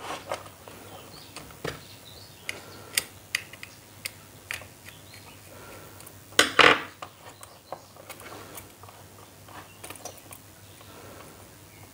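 Scattered small clicks and rustles of wires and a plastic bulb holder being handled, with a screwdriver working the holder's screw terminals. A louder, brief clatter comes about six and a half seconds in.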